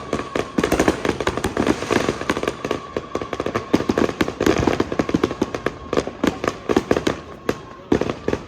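Fireworks going off in a dense, rapid barrage of cracks and pops, many a second, thinning out near the end, with a faint steady high tone underneath.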